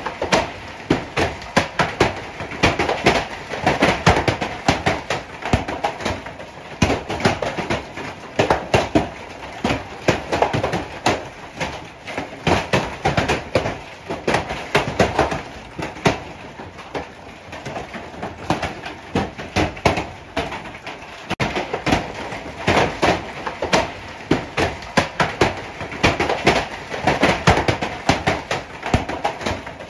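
Heavy hail pelting down, heard from indoors behind a window: a dense, irregular clatter of sharp knocks that never lets up.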